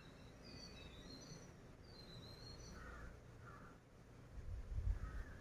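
Faint crows cawing a few times and small birds chirping in the background. A few low thumps come about four and a half seconds in.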